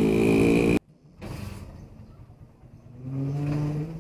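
Steady drone of traffic and motor with a high whine and wet-road hiss while riding on a rain-soaked street, cutting off abruptly under a second in. A fainter low hum comes in about three seconds in.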